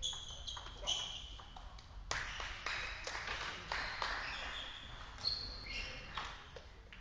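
Table tennis balls being played: an irregular string of sharp, ringing clicks as the celluloid balls strike bats and bounce on the tables.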